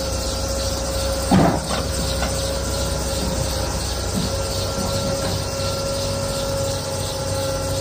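Excavator diesel engine running steadily with a low rumble, a steady whine and hiss, and one brief loud clunk about a second and a half in.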